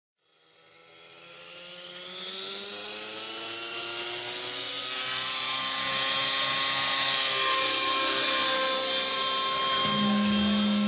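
Radio-controlled model helicopter with a smoking glow (nitro) engine spooling up: a high-pitched whine that rises in pitch over the first several seconds, then holds steady and loud as it lifts off and climbs. A steady low tone comes in near the end.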